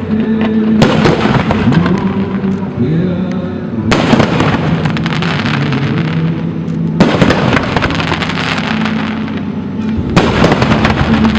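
Fireworks display: dense crackling and popping of aerial shells, with a fresh barrage breaking out about every three seconds.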